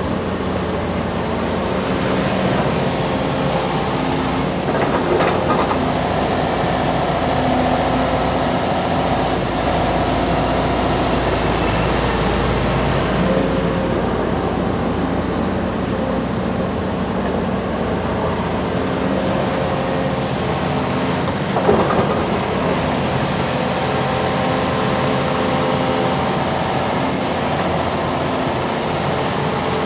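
Volvo EC380D crawler excavator's diesel engine running under load, with its pitch shifting as the hydraulics work. There are two short metallic knocks, the louder one about two-thirds of the way through.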